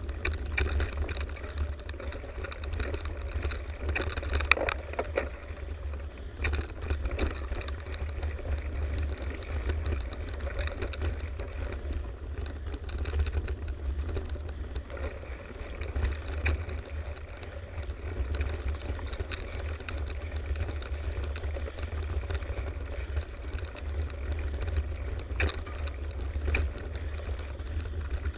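Mountain bike rolling fast down a dirt forest trail: a continuous rush of tyre and trail noise with frame rattle and occasional sharper knocks over bumps, over a heavy low rumble of wind on the microphone.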